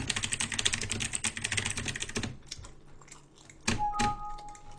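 Rapid typing on a computer keyboard for about two seconds, then two sharper clicks and a short steady electronic beep near the end.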